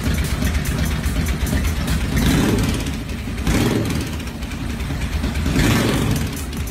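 Carberry Double Barrel 1000 V-twin engine, made from two Royal Enfield 500cc cylinders on a new crankcase, running on a test stand and revved by hand in about three short throttle blips.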